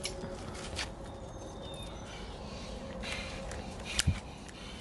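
Quiet outdoor yard sounds: a few light clicks and footfalls on grass and dirt, with a short pair of knocks about four seconds in.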